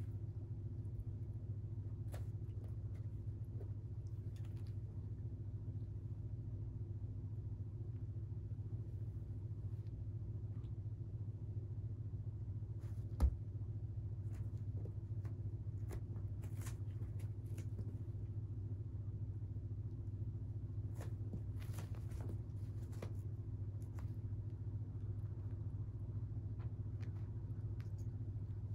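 Steady low hum, with one sharp click about 13 seconds in and a few faint rustles in the second half.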